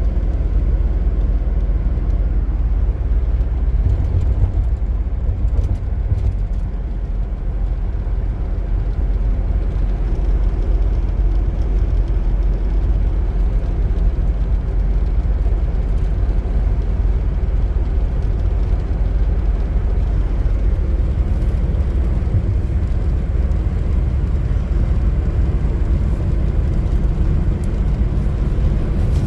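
Steady low rumble of a 2000 Nissan Frontier XE pickup driving along, heard from inside: its four-cylinder engine (a KA24DE 2.4-litre) running at a steady speed with road noise.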